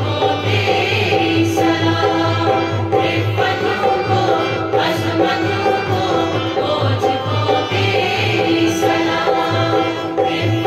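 A college anthem sung by a group of voices over instrumental accompaniment, with a steady low beat and a sustained note beneath the singing.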